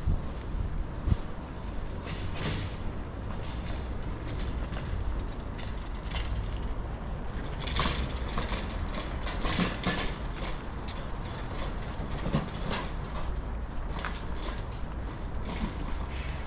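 Street traffic: a steady low vehicle rumble with intermittent short hisses and clicks, and a few brief high squeaks.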